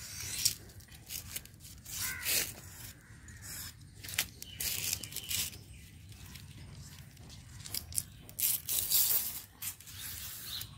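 Green coconut frond leaflets being torn and scraped in short, irregular strokes as they are stripped down to their midribs for a broom.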